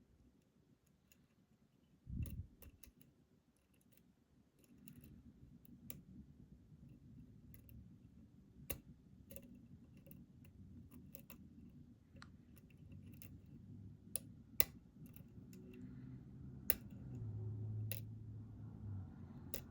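Hook pick and tension wrench working the pins of a lock: scattered sharp metallic clicks and light scraping, with a brief low thump about two seconds in and a faint low rumble of handling.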